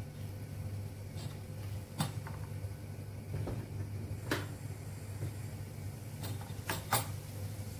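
Wooden spoon stirring ground beef and onions in a nonstick frying pan, scraping with sharp knocks against the pan every second or so, over a steady low hum.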